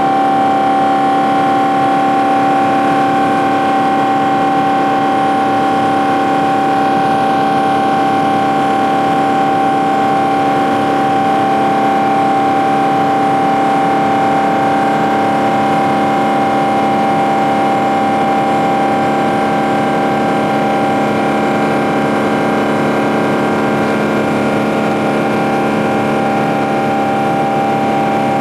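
Boeing 777-200ER turbofan engine running in flight, heard from a cabin window seat over the wing. It is a steady rushing noise with one strong steady tone and many fainter steady tones above it, unchanging throughout.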